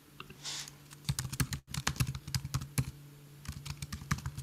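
Typing on a computer keyboard: a quick, irregular run of key clicks starting about a second in.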